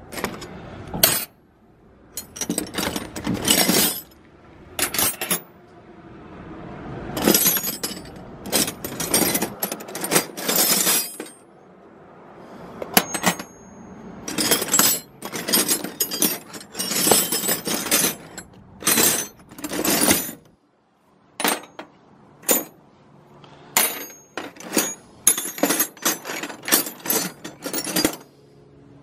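Steel Proto Challenger wrenches clinking and clattering against one another as they are handled and set down, in irregular clusters of sharp metallic contacts with short pauses, a few ringing briefly.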